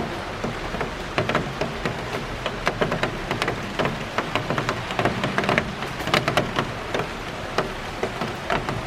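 Rain shower: a steady hiss of rain with many heavy drops tapping sharply and irregularly.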